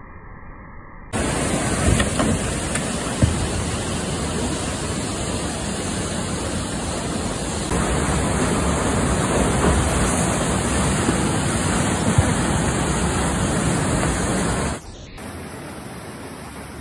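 Whitewater rushing through a narrow gorge, recorded on a phone. The sound jumps up about a second in, gets a little louder around the middle, and falls back to a quieter rush near the end.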